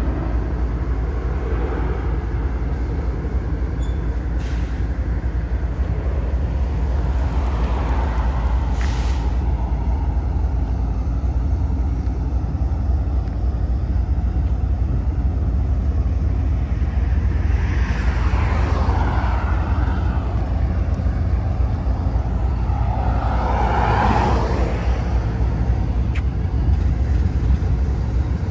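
Union Pacific GE diesel-electric locomotives running as they roll slowly past, a steady low engine rumble. Two swells of noise that rise and fall come about two-thirds of the way through and again near the end.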